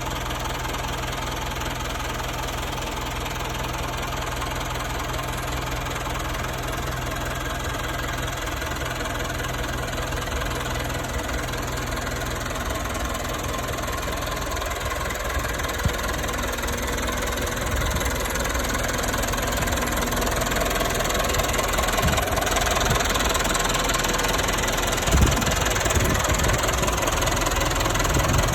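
Fermec 760 backhoe loader's diesel engine idling steadily, growing louder in the second half, with a couple of brief knocks.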